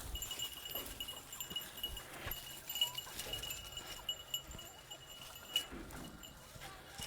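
Nigerian dwarf goats bleating faintly and intermittently, over a steady, thin high-pitched tone that pulses gently throughout.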